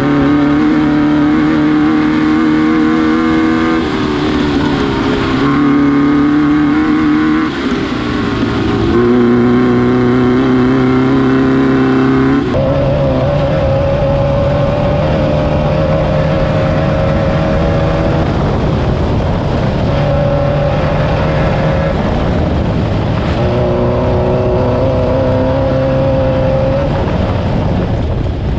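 Air-cooled VW engine of a Class 9 off-road race buggy running hard under load, over steady rough-terrain noise. The engine note dips and climbs back a few times, then jumps to a higher pitch about twelve seconds in and holds there with small changes.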